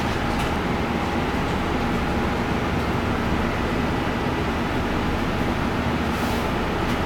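Steady mechanical hum and whir of kitchen equipment, a fan-like noise with a low rumble and a faint steady whine.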